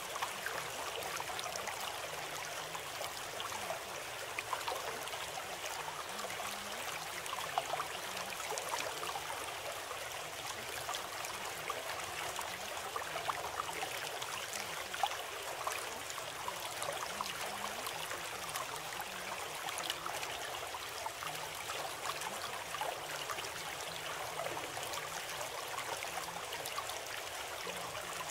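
Running water of a stream, a steady even rush with small trickling splashes.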